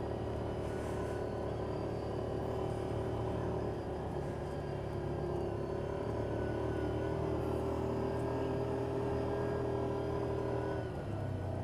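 Yamaha Viking side-by-side's engine running steadily as it drives along the trail, heard from inside the cab. Its note changes briefly near the end.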